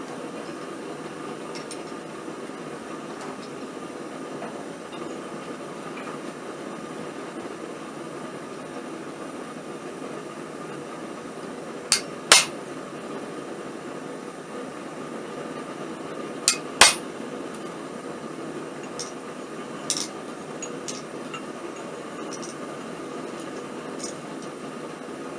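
Double-burner gas forge running with a steady rushing noise. Over it come a few sharp metal clinks, two pairs about halfway through, then some lighter ticks.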